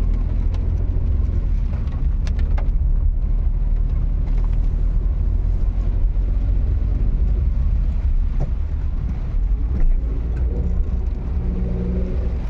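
An engine running steadily with a heavy low rumble, heard from on board the moving vehicle, with a few faint clicks over it.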